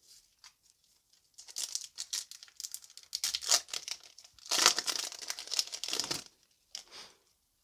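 Foil wrapper of a Yu-Gi-Oh! booster pack crinkling and tearing as it is handled and ripped open by hand. The crackle starts after about a second and a half and is loudest a little past halfway, as the cards are pulled out of the torn foil.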